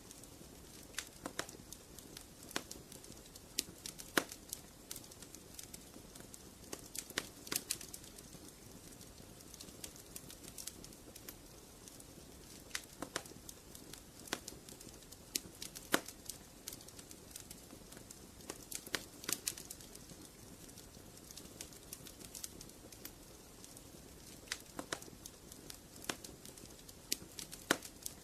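Wood fire crackling in a fireplace: irregular sharp pops and snaps over a soft, steady low hiss.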